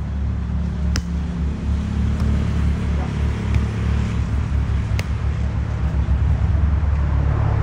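Loud, steady low rumble that flickers without a clear rhythm, with a couple of faint sharp taps, one about a second in and one about five seconds in.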